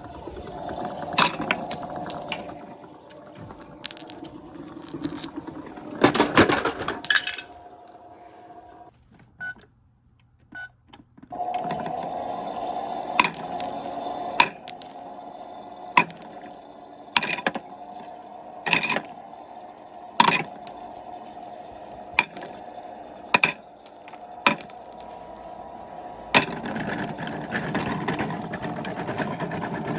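Toy washing machine's small electric motor whirring with a steady hum, broken by a dozen or so sharp clicks or knocks. The hum stops for a couple of seconds about a third of the way in, then starts again.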